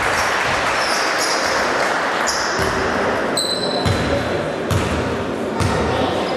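Basketball bounced on a hardwood gym floor as a pre-free-throw dribble: three thuds a little under a second apart in the second half, over the steady murmur of a crowd in a large hall.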